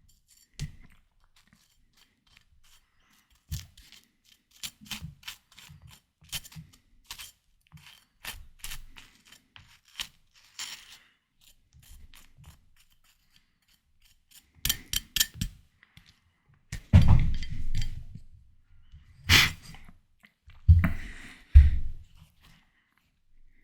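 Close-miked eating of juicy watermelon: scattered crisp crunching clicks of chewing, then a few louder wet bites and chews in the second half.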